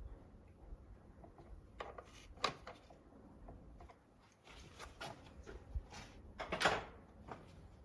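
Hand tools and motorcycle parts being handled: scattered light clicks and knocks, with a sharp knock about two and a half seconds in and a louder scraping clunk near the end.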